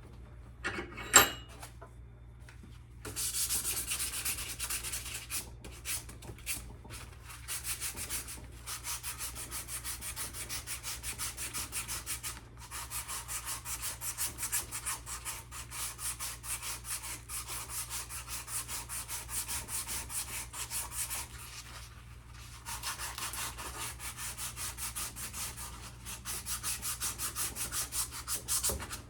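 Hand-sanding a rusty iron axe head: sandpaper on a sanding block rubbing the metal in quick, rhythmic back-and-forth strokes to take off rust, pausing briefly twice. About a second in there is a single sharp, ringing metallic clink.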